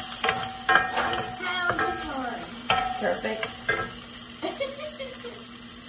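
A metal fork clinking and scraping against cookware, a run of sharp ringing taps, over the steady sizzle of sausage frying in a cast iron skillet.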